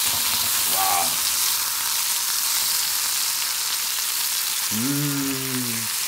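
Morels sizzling steadily as they fry in butter in a pan. A person's voice makes a brief sound about a second in and a longer drawn-out vocal sound near the end.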